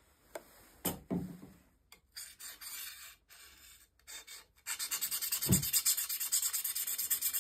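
Diamond honing paddle rubbed quickly back and forth along a steel drawknife blade, an even run of rapid scraping strokes that starts about two-thirds of the way in. Before it, a few knocks and clicks of the paddle and bottle being handled.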